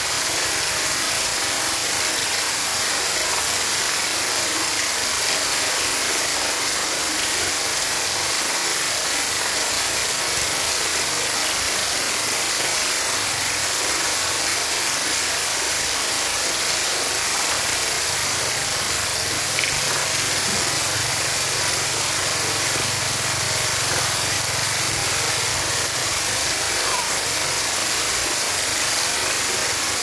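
Fountain water falling and splashing steadily into a shallow tiled pool.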